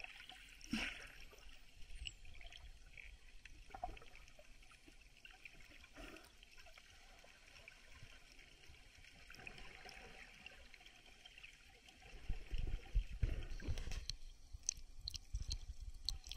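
Muffled underwater water sound heard through a camera's waterproof housing: a faint hiss with occasional soft knocks. Near the end, louder sloshing and splashing with sharp ticks as the camera breaks the surface.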